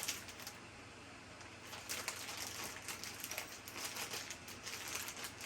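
Faint rustling and light clicks as shoe-rack parts are handled during assembly, strongest near the middle.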